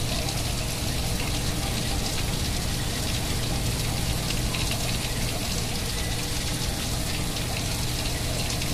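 Heavy thunderstorm downpour: a steady, even hiss of hard rain falling.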